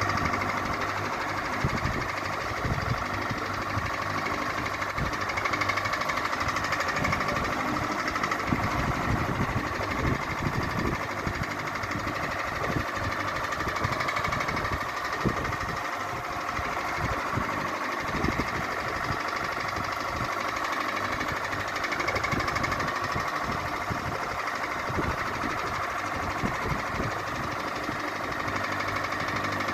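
Ceiling fan running steadily, with a constant whirring hum and a fast, uneven knocking rattle underneath.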